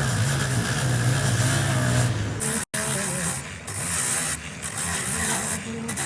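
A heavy engine running steadily with a low hum. It cuts off abruptly a little over halfway in and gives way to a quieter, changing mechanical sound.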